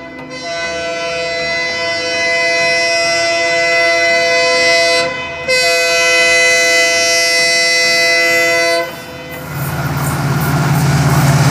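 WDP4D diesel locomotive blowing its horn in two long blasts, the second after a short break about five seconds in, then the rising rumble of the locomotive and train drawing near at speed.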